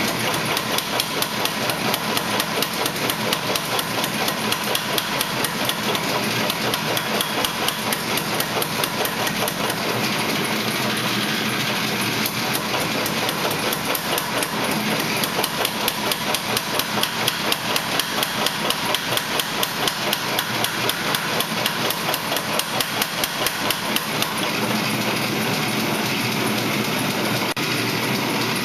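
Hammer blows on a steel spearhead being forged, an even run of strikes about three a second that stops near the end, over a steady running noise.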